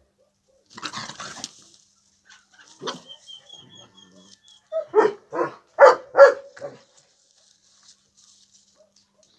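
A short rustle, then a dog barking about five times in quick succession, about five seconds in.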